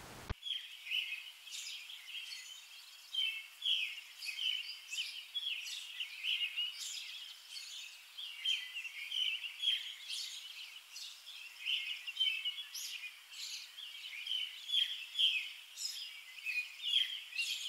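Small birds chirping: a steady stream of short, high chirps, one after another.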